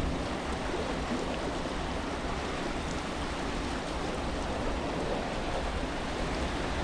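Steady rushing noise aboard a river cruise ship under way, the sound of its passage through the water and air.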